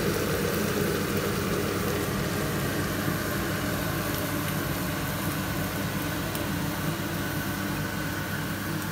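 Steady machine hum with an even hiss over it, unbroken and unchanging.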